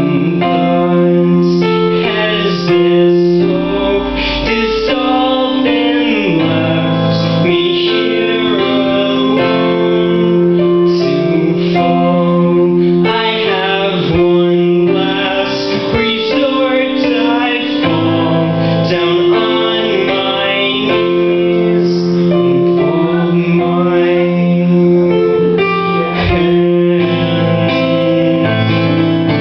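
Casio Privia digital piano played in sustained chords and melody, with a man singing along into the microphone.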